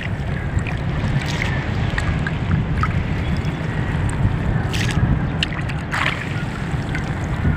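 Steady low rumble of wind on the microphone, with scattered splashes and drips of water from a fishing net being worked along the side of a small boat.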